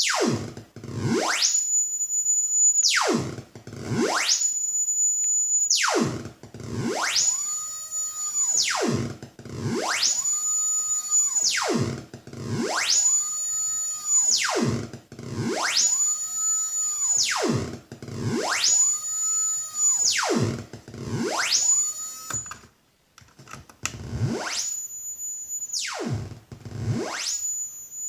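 Brunswick synthesizer oscillator sweeping in pitch, gliding down from a high whistle to a low buzz and back up again, about once every two seconds. It breaks off briefly about three-quarters of the way through.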